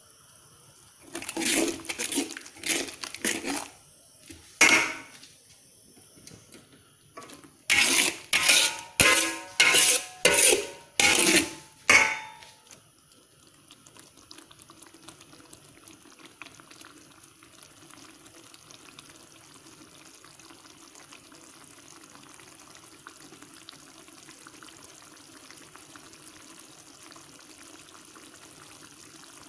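Metal spatula scraping and knocking against a large metal wok while stir-frying rice: irregular scrapes in the first few seconds, then a quick run of about eight loud scrape-and-knock strokes. After that only a steady faint hiss remains.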